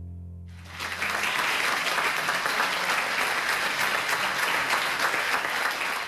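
Audience applauding, breaking out about half a second in as the last held chord of the backing music fades away.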